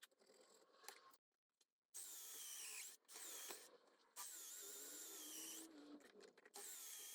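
Mini drill press running a cutter into the block's holes, in four short bursts, each cut off abruptly, with a wavering squeal from the cutting.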